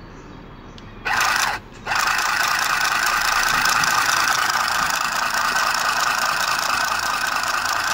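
Kiwi battery-powered handheld mini sewing machine running, its needle stabbing rapidly through a paper napkin. It starts about a second in, stops for a moment, then runs steadily. The machine is not forming stitches: the thread fails to lock, which is the fault being shown.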